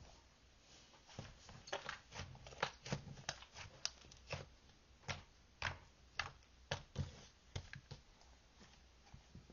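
Irregular light clicks and taps, a few each second.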